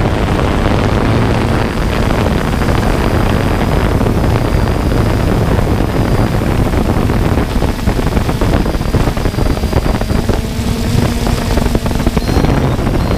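Small camera drone's motors and propellers running steadily, with wind rushing over the microphone and a faint high whine that comes and goes.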